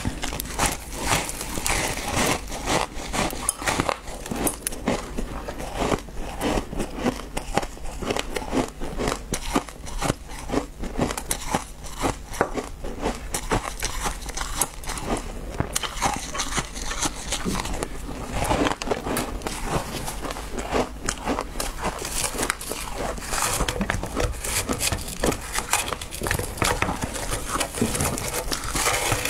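Frozen shaved ice being bitten and chewed close to a clip-on microphone: a rapid, continuous run of sharp, crackling crunches.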